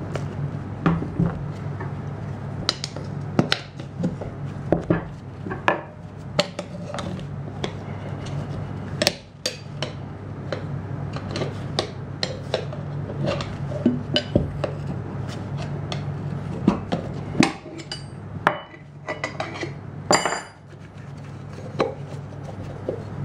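A minibike tyre and wheel being handled and worked on a workbench: irregular knocks and metal clinks of the rim and tyre levers, over a steady low hum.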